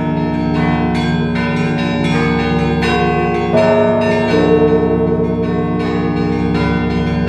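Russian Orthodox church bells played by one ringer: several bells of different sizes chiming in overlapping strokes, one about every two-thirds of a second, over the long hum of a large bell. A louder, deeper stroke comes about three and a half seconds in.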